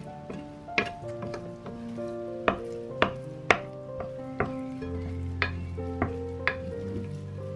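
Wooden spatula stirring and folding a sticky dough in a ceramic bowl. It knocks sharply against the bowl about eight times, the loudest sounds, over background music with held notes.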